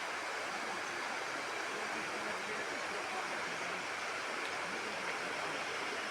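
Steady rushing of floodwater, an even noise with no breaks.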